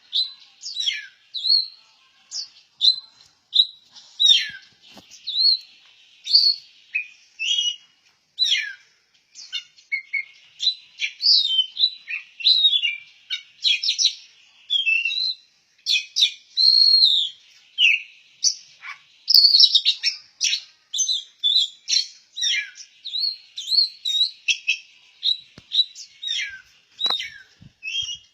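Oriental magpie-robin singing a long, varied song of short whistles, chirps and rising and falling notes, phrase after phrase with brief gaps.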